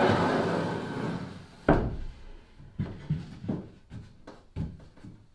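A plywood seat top sliding with a noisy scrape across the edges of plywood seat bulkheads, then set down with a sharp wooden knock just before two seconds in, followed by several lighter knocks as it is shifted into place.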